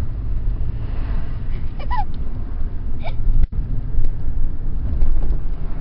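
Steady low road and engine rumble inside a moving car's cabin. A couple of short, high, voice-like chirps come about two and three seconds in, and the sound cuts out for an instant about three and a half seconds in.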